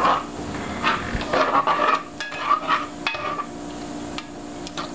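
A black plastic spoon stirring chopped turkey bacon and onion in a hot nonstick saucepan, with irregular scrapes and taps against the pan, busiest in the first three seconds, over a low sizzle of the fat.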